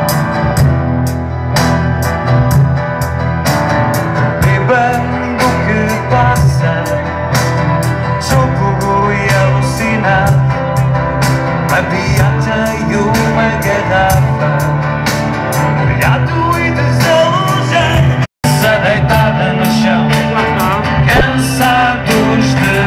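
Live band playing amplified rock-style music over a PA, with a singer and a steady drumbeat. The recording cuts out for an instant about 18 seconds in.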